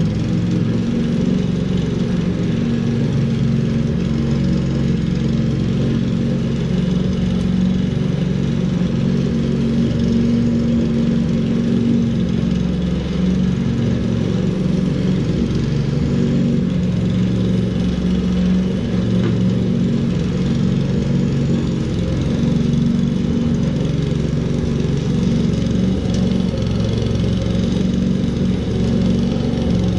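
Walk-behind rotary lawn mower engine running steadily while cutting slightly overgrown grass.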